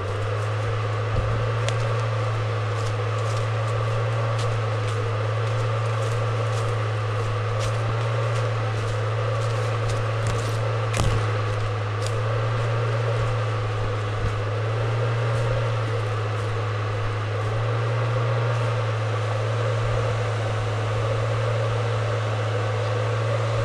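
Steady electric hum of a hornet suit's battery ventilation fan running close to the microphone, with scattered soft clicks and rustles over it.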